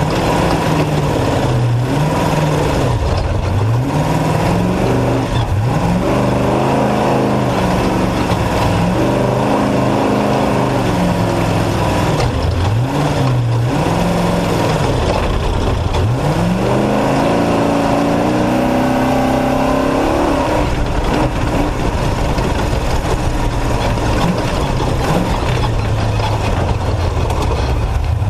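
Off-road race truck's engine running hard, its pitch climbing and dropping again and again as the throttle is worked and gears change, over a steady rush of wind and road noise.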